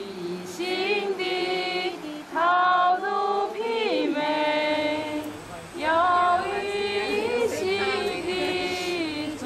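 Background music: a Buddhist devotional song sung by women's voices in long, held notes that slide between pitches, with several voices together at times.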